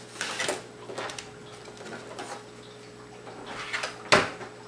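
Handling noise as a laptop is turned over on a wooden table: scattered light clicks and rubs, then one sharper knock about four seconds in as it is set down.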